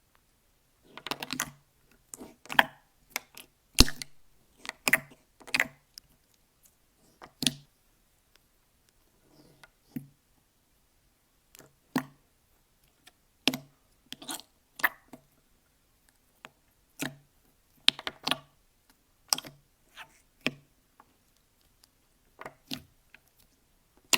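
Slime being pressed and poked, making sharp, irregular clicks and pops, roughly one or two a second, with short silences between.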